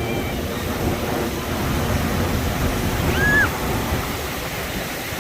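Steady outdoor rushing noise, heaviest in the low range, with a short high chirp that rises then falls about three seconds in.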